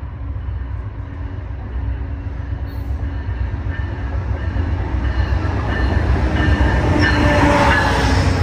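Diesel passenger train pulling into a station alongside the platform: a low rumble that grows steadily louder as the locomotive draws level, peaking about seven seconds in, with thin high squealing from the wheels.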